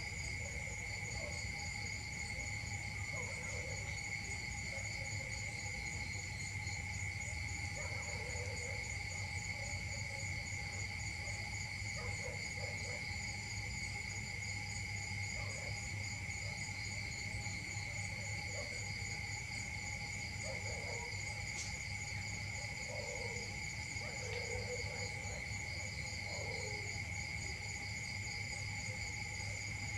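A steady chorus of insects: several constant high tones, the highest finely pulsing, over a low hum, with faint short sounds scattered through it.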